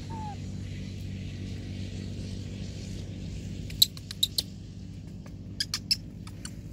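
Baby monkey giving short, sharp, high-pitched squeaks in two quick bursts, three about four seconds in and four more around six seconds, over a steady low hum.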